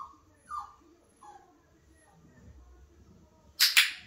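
A 4½-week-old flat-coated retriever puppy gives three short, falling whimpers in the first second and a half. Near the end a training clicker clicks twice in quick succession, the loudest sound.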